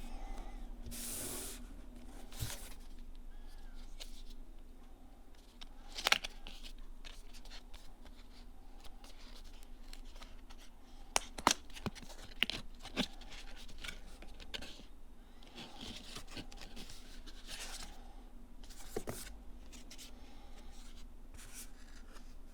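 Packaging being handled and opened: rustling, rubbing and tearing of cardboard and plastic, with a few sharp clicks and taps, the loudest about six seconds in and again around eleven to thirteen seconds in.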